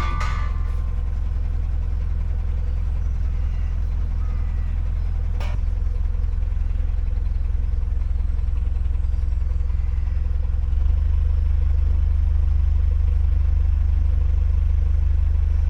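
Narrowboat's diesel engine running with a steady low rumble, stepping up louder about eleven seconds in as it is given more throttle. A single sharp click sounds about five seconds in.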